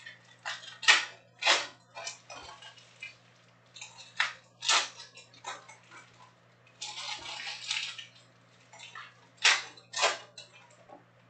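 Topps Chrome trading cards being handled and set down onto stacks: a series of sharp slaps and shuffles of card stock, with a longer rustle about seven seconds in.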